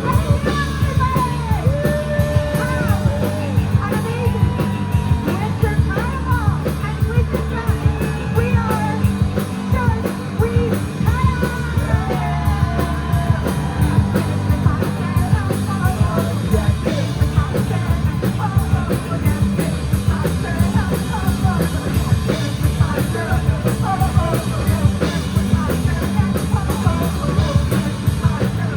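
Live rock band playing a fast song: a drum kit keeps a steady beat under bass and guitars, with a voice singing or shouting over it, most clearly in the first half.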